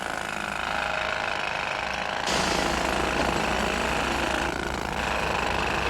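Pneumatic jackhammer hammering steadily, a continuous rapid rattle, growing louder about two seconds in.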